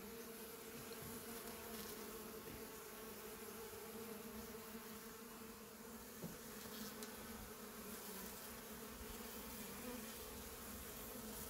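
Honey bees buzzing in flight as a crowd of them feed on leftover honey, a faint, steady hum of many wings. A small tap about six seconds in.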